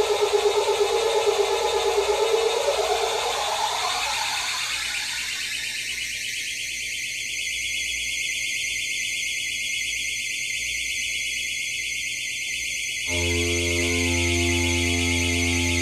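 MFOS Weird Sound Generator analog synthesizer, run through a delay pedal, making a rapidly pulsing buzzy electronic tone. Over the first few seconds its low end thins away, leaving a high whine. About thirteen seconds in it switches suddenly to a steady low buzz.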